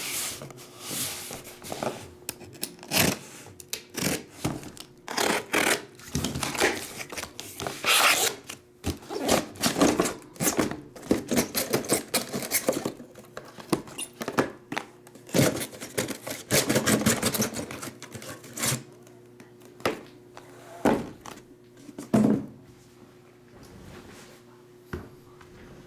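Packaging being handled and opened by hand: irregular rustling, tearing and scraping, with occasional thunks, over a faint steady hum.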